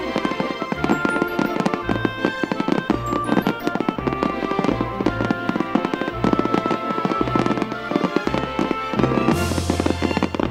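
Aerial fireworks bursting in a rapid barrage of bangs and crackles, with music playing throughout. A loud hissing crackle with a deep rumble comes in near the end.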